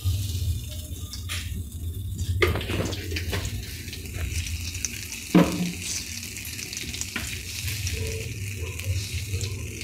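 Cooking oil sizzling in an aluminium kadai as it heats, a steady light hiss, with a sharp knock about five seconds in.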